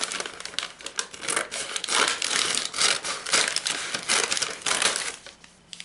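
Paper bag crinkling and rustling in irregular bursts as hands handle it and cut it open with scissors, dying down near the end.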